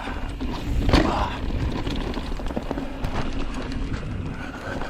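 Mountain bike rolling fast over a rough dirt trail: a steady low rumble of tyres on dirt, with the bike clattering and knocking over bumps and a harder jolt about a second in.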